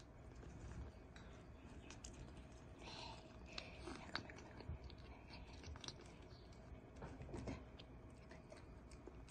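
Faint small wet mouth clicks of a kitten licking and lapping liquid medicine from an oral syringe, coming in short clusters.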